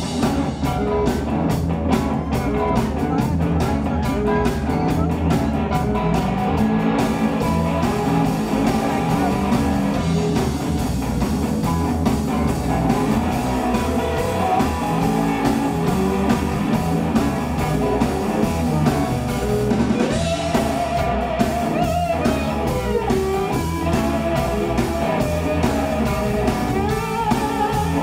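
Live electric blues band playing: electric guitar lines with bent notes over bass guitar and drum kit.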